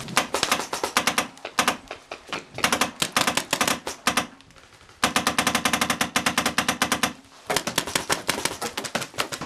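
Paintball markers firing fast strings of shots, several bursts of rapid pops with a short pause about four seconds in.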